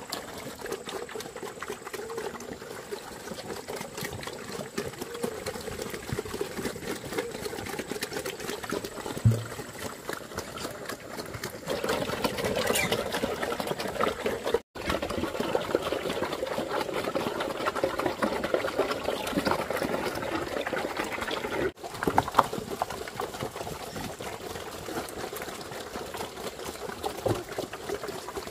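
Water trickling and splashing steadily, growing louder about halfway through and breaking off for an instant twice.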